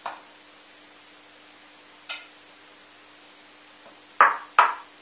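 Food being served from a wok into a ceramic bowl: a couple of light clinks of the silicone spatula and bowl, then two sharp knocks close together near the end, as the bowl or the spatula meets a hard surface. A faint steady hum runs underneath.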